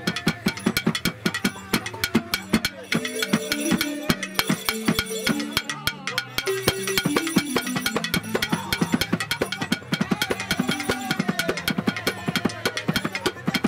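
Two Dagara gyils, West African wooden xylophones with gourd resonators, played with mallets in a fast, dense interlocking bine funeral piece. A hand-struck calabash drum plays along.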